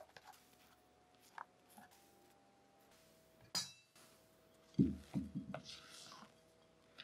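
Silicone spatula folding thick genoise batter in a glass mixing bowl: soft wet scraping, a light clink against the glass about three and a half seconds in, and a few dull knocks around five seconds as the bowl is handled.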